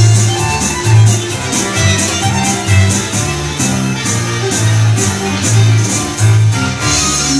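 Fiddle being bowed over electric guitar and bass guitar, playing an instrumental break in a country/bluegrass tune, with a pulsing bass line underneath.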